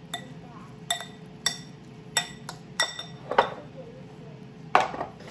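Metal spoon clinking against a glass mixing bowl while green peas are stirred: about eight sharp, ringing clinks at irregular intervals.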